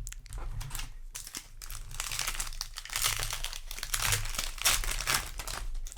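Crinkling of a Magic: The Gathering Edge of Eternities play booster pack's foil wrapper being handled, a dense crackle that grows busiest from about two seconds in.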